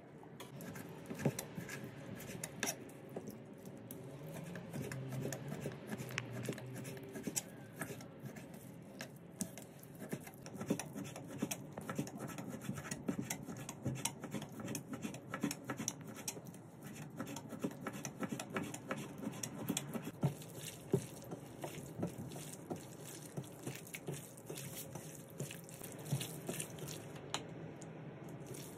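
Chef's knife slicing raw beef skirt steak thinly on a cutting board: a long run of quick, irregular light taps and clicks.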